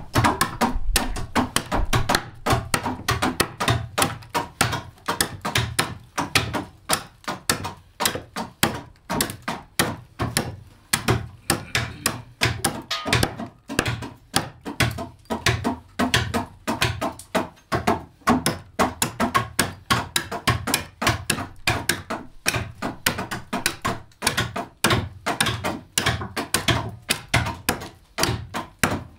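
Several hand adzes chopping into mulberry wood, hollowing out the carved one-piece bowls of bağlama sazes. It is a continuous run of overlapping wooden knocks, several a second, in an irregular rhythm as the carvers' strokes fall in and out of step.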